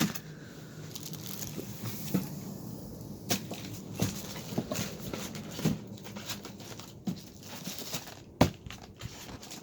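Ceiling-fan packaging being handled: irregular rustling, scraping and light knocks of cardboard and plastic, with one sharper knock about eight seconds in.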